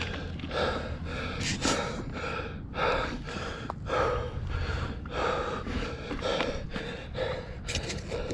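A person panting hard and out of breath, with quick, even breaths a little under two a second.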